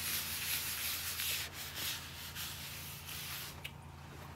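Paper towel wiping grease off a ceramic-coated non-stick griddle top in repeated back-and-forth rubbing strokes. The rubbing stops about three and a half seconds in, followed by a light click.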